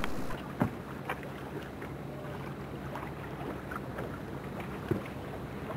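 A motorboat's engine runs at a steady low hum under wind noise on the microphone, with a few light knocks.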